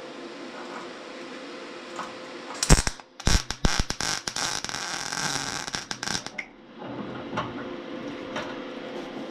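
MIG welding on a rusty steel tractor fuel tank. The arc strikes with a couple of sharp pops about three seconds in, crackles and sizzles for about three seconds, then cuts off. A steady hum runs underneath.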